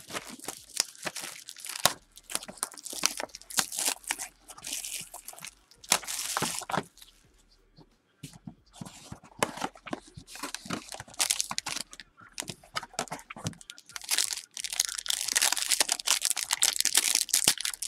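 Plastic wrap being torn off a trading-card hobby box, with crackling and rustling of wrap and cardboard. Near the end comes a long stretch of loud crinkling as the foil-wrapped card pack from inside is handled and opened.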